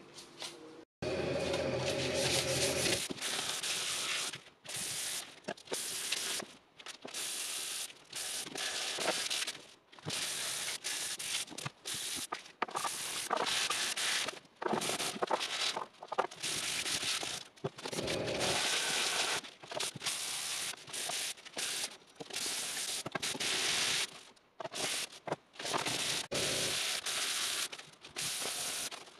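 Hand sanding of painted or filled bodywork: scratchy rubbing strokes in many short stretches that start and stop abruptly.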